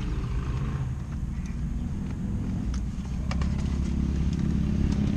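Low motor-vehicle engine rumble with a steady hum that grows louder from about halfway through.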